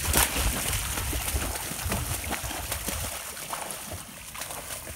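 Splashing and sloshing of steps wading through shallow water and dead marsh grass, with reeds brushing and crackling, irregular and a little louder at the start.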